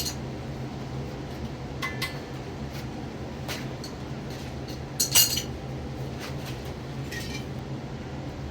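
Metal tools and parts being handled: a few sharp, ringing metallic clinks, at the start, about two seconds in, a louder pair around five seconds and a lighter one near seven, over a steady low hum.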